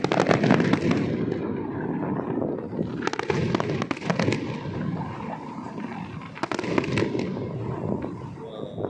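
Fireworks display going off in quick succession: dense clusters of sharp bangs and crackling at the start, again about three seconds in and near seven seconds, over a continuous rumble of bursts.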